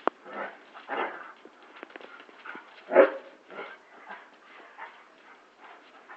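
Two dogs play-fighting, giving short barks and yelps at irregular intervals, the loudest about three seconds in.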